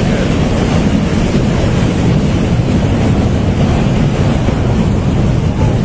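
Flash-flood debris flow: a torrent of muddy water and boulders rushing down a rocky channel, heard as a loud, steady, low rushing noise.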